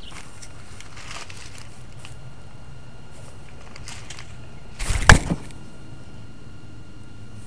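Low rubbing and rustling from a cat's collar camera as the cat moves, broken about five seconds in by a short cluster of knocks, one of them very loud, as the camera bumps against something hard.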